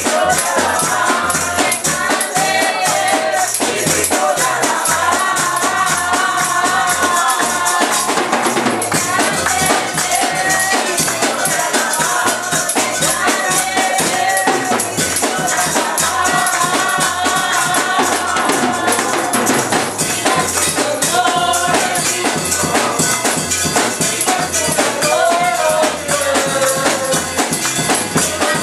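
Live worship band playing a song, with singing over a bass line and a steady, rapid rattle of shaken hand percussion.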